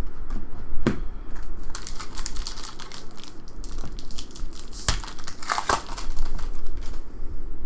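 Trading cards and their crinkly packaging being handled, with a dense run of crinkling and sharp snapping clicks in the middle.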